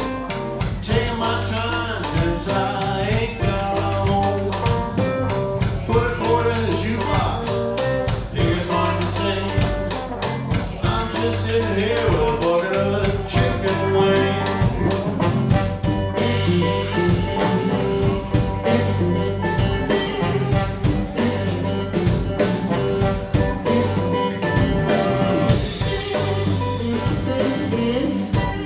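Live blues band playing: electric guitars over bass and drum kit, in a steady groove.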